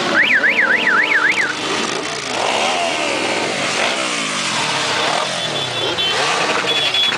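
A column of motorcycles and scooters riding slowly past, engines running and rising and falling in pitch as each bike goes by. Near the start an electronic warbling siren sounds briefly, rising and falling about four times.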